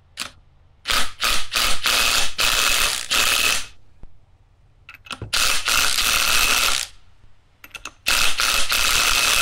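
Cordless impact wrench (Ryobi ONE+ HP) hammering the nut down on an alternator's pulley shaft, in three bursts of about two to three seconds each, with a few short blips before the first.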